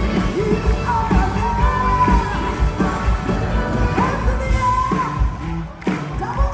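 Contemporary worship music: a full band with steady kick-drum beats under a lead voice singing long, held, gliding notes.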